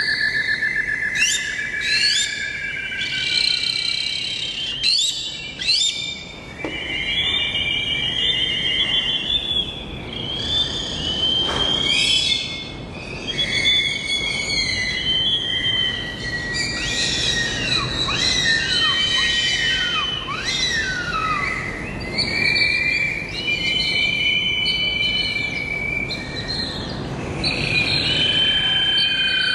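A dense chorus of birds calling and singing at once: overlapping warbling trills and whistles, with a run of quick descending sweeps about two-thirds of the way through.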